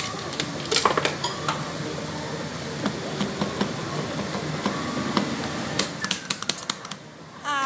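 Clicks and rattles from a claw machine being played, scattered over a steady background hum.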